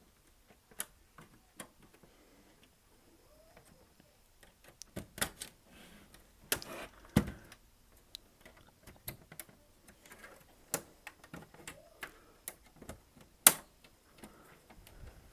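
Small flathead screwdriver working at the plastic clips of an Xbox 360 Slim's casing: irregular sharp clicks and short scrapes of metal on hard plastic. The loudest click comes about 13 seconds in.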